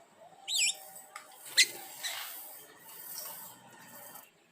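Small birds calling: a quick wavy call about half a second in, then a single sharp, louder chip about a second later.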